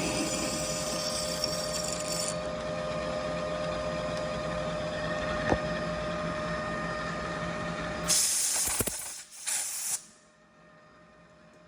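A metalworking machine tool, a lathe or mill, runs steadily with a motor hum and a few steady tones. About eight seconds in it stops, with two loud hisses over about two seconds, and then the room goes quiet.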